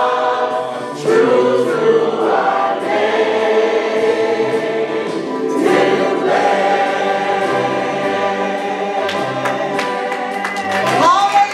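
Church choir of men and women singing a gospel song together, holding long notes.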